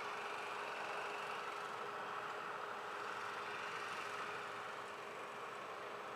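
Engine of a pickup-based fire brush truck running as it drives slowly across the field, a steady hum with a constant tone, easing a little in the second half.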